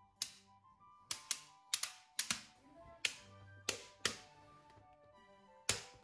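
Slabs of small neodymium magnetic balls snapping together: about ten sharp clicks, some in quick pairs, each with a short ring. Soft background music plays underneath.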